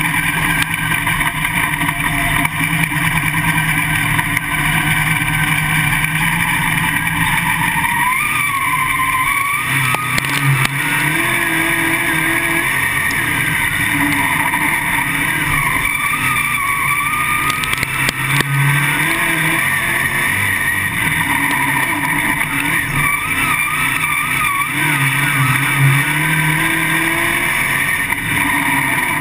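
Winged outlaw late model's V8 engine heard from inside the car, running steadily at first, then rising and falling in pitch over and over as the throttle is worked through the turns of the dirt oval.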